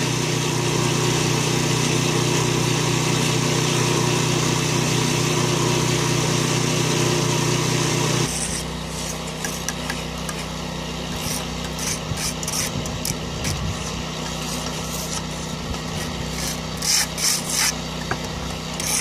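A small engine runs with a steady hum for about the first eight seconds. After that it gives way to a mason's trowel scraping and tapping mortar on concrete blocks, a string of short scrapes that are loudest near the end.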